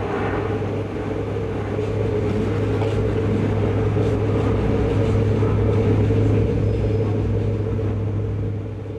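A motor vehicle engine running steadily as a low drone, fading away near the end.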